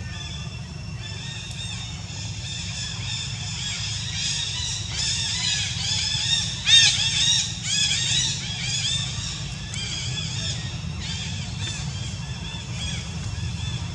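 High-pitched chirping calls repeating in quick runs, loudest about seven seconds in, over a steady low hum.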